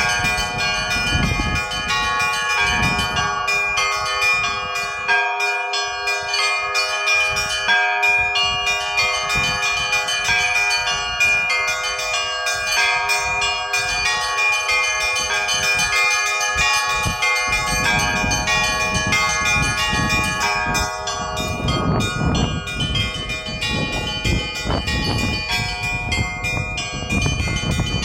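A peal of Russian Orthodox church bells on Kizhi Island: several bells of different pitches are struck in quick succession and overlap, ringing continuously. From a little past the middle, a low rumbling noise sits under the bells.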